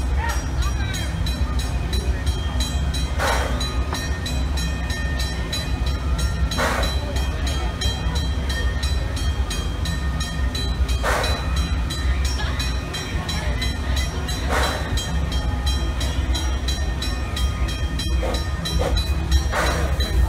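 Six Flags & Texas Railroad Engine 1, a steam locomotive, moving slowly with a low steady rumble and a short hiss of steam every three to four seconds, five times.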